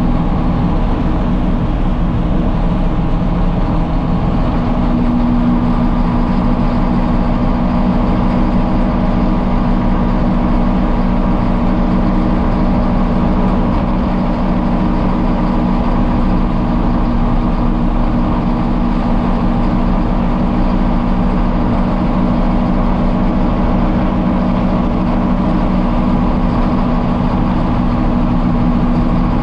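Heavy diesel engine running at a steady, unchanging speed, a constant low drone.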